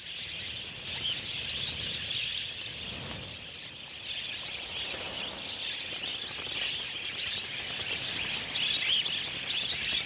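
A large flock of budgerigars chattering, many high chirps overlapping into a steady wash of sound.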